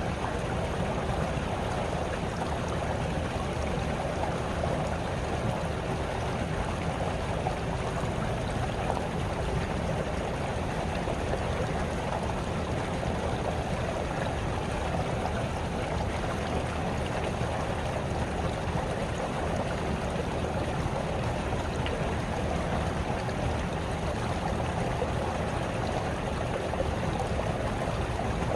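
A small stream babbling and trickling steadily over stones, an even rush of water.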